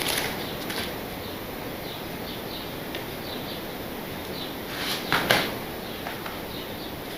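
Hands rustling and handling crumpled paper scenery on a model railway layout, with a couple of short, louder rustles about five seconds in, over a steady background hiss.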